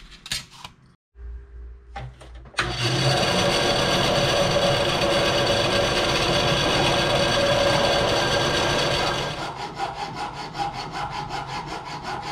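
A few light handling clicks, then a hand file rasping on an aluminum angle bracket clamped in a bench vise. It runs as one steady rasp for several seconds, then changes to quick separate strokes about three-quarters of the way in.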